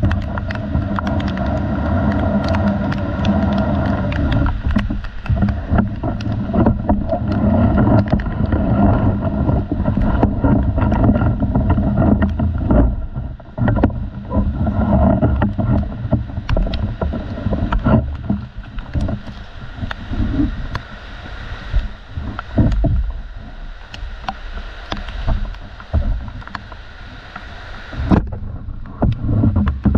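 Wind and handling rumble on a handheld GoPro in the rain, with many sharp taps and knocks as raindrops and branches hit the camera. The rumble is heaviest in the first half and eases after about thirteen seconds.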